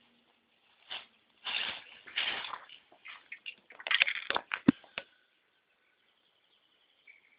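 Aerosol spray paint can hissing in short bursts, followed by a few sharp clicks.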